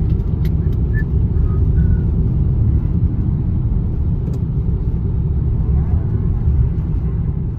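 Steady low rumble of road and engine noise from a vehicle driving at highway speed, heard from inside the cabin through a dashcam's microphone, with a few faint clicks in the first second.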